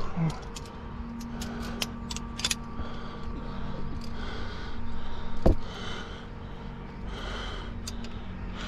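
A rock climber breathing hard in hissy breaths while climbing. About a second in there is a quick run of small clicks from climbing gear, and a dull knock comes about halfway through.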